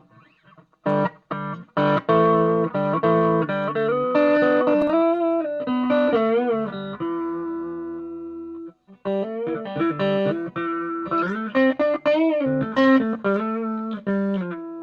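Hudson HLP-450 Les Paul-style electric guitar played through an amp: picked notes and chords with wavering bends. A held note rings out and fades, and playing starts again after a short break about nine seconds in.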